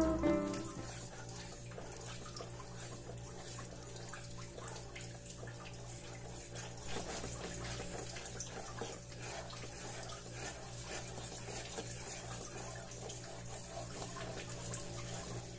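Faint running water, like a tap running into a sink, over a steady low hum, after background music fades out at the start.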